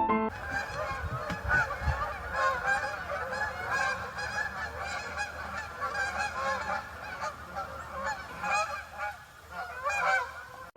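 A flock of geese honking, many short calls overlapping at once, after piano music cuts off just after the start.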